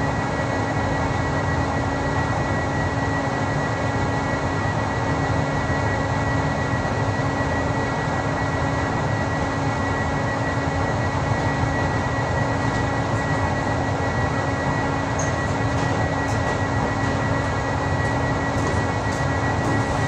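Paint spray booth's ventilation fans running: a steady rush of air with a constant hum and a thin high whine.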